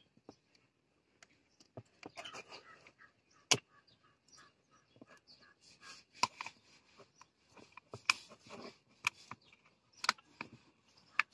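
Screwdriver prying and scraping at the plastic top cover of a 12-volt lead-acid battery to open it, scattered scratches and small clicks with several sharp snaps, the loudest about three and a half seconds in.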